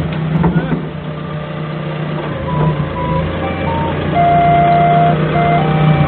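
Doosan 4.5-ton forklift engine running steadily. From about two and a half seconds in, a simple melody of short plinking tones at changing pitches plays over it.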